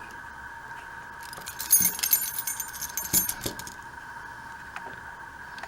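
Small tool prying at a Flip camera's glued-on screen: a dense run of sharp clicks and crackles for about two seconds, with a few light knocks, starting about a second in.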